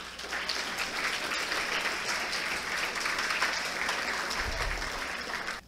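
Audience applauding, a steady clapping that fades out near the end.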